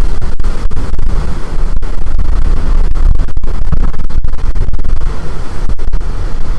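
Strong storm wind buffeting the microphone: a loud, continuous low rumble that peaks near the top of the recording's range.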